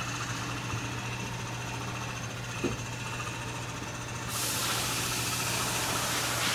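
Utica collarette cutter running with a steady low hum while fabric passes through its rollers and slitting knives; about four seconds in a louder hiss sets in over the hum.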